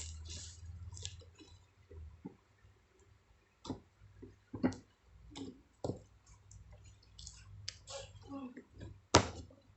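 Scattered light clicks, taps and rustles of small items being handled, with one sharp click near the end.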